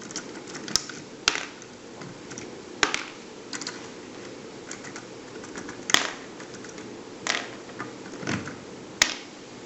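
Small sharp plastic clicks and taps, about seven, irregularly spaced, as plastic wheelsets are pulled out of an HO-scale model locomotive's truck and handled.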